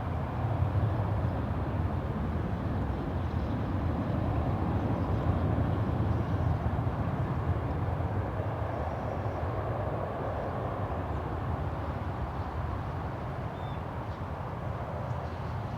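Jet airliner engines, a steady rumble that builds a little over the first few seconds and then slowly fades.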